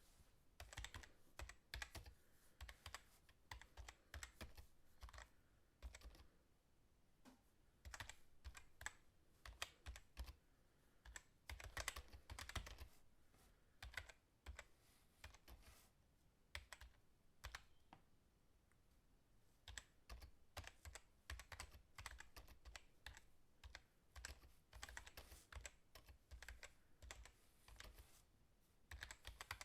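Fast typing on a computer keyboard: rapid runs of key clicks in bursts, broken by short pauses.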